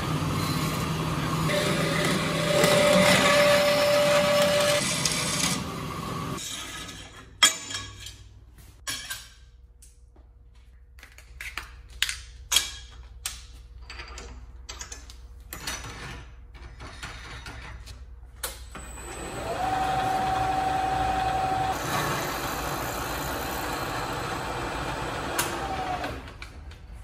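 Electric power tool working a piece of steel plate into bracket stock: it runs with a steady whine for about six seconds, then come scattered metallic knocks and taps, then it spins up again, runs for about six seconds and winds down near the end.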